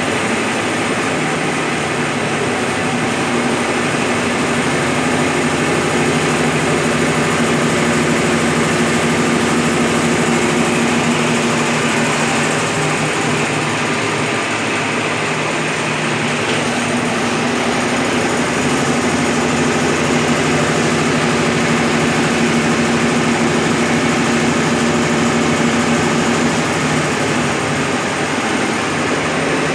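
Brastemp BWL11 11 kg top-loading washing machine in its spin cycle with a load of rugs, running steadily with a constant hum. It carries an odd noise that the owner likens to metal knocking.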